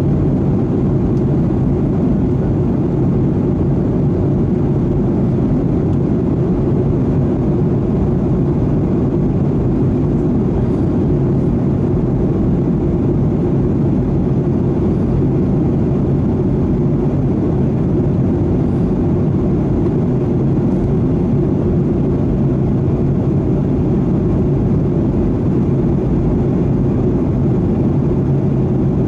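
Cabin noise of a Boeing 737-800 in cruise, heard inside the cabin: a steady low roar of airflow and its CFM56 jet engines, with a low hum running through it.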